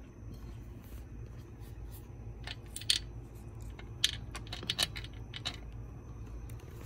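Scattered light metallic clicks and taps as a chainsaw powerhead is handled, over a low steady hum.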